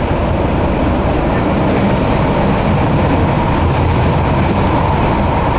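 Toei Oedo Line linear-motor subway train running through a tunnel, heard from inside the car as a steady, loud rumbling noise.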